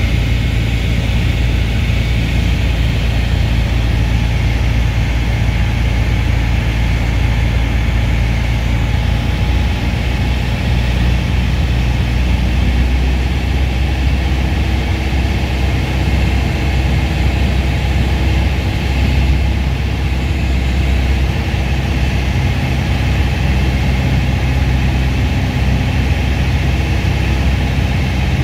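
Steady drone of a Piper PA-28-181 Cherokee Archer II's four-cylinder Lycoming engine and propeller, heard from inside the cabin.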